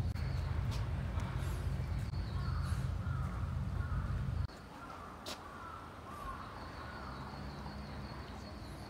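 Runs of short, falling bird calls, repeated quickly, over a low rumble that cuts off suddenly about halfway through.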